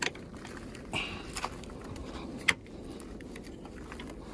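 A few short sharp clicks and taps, the loudest about two and a half seconds in, over a steady low background noise.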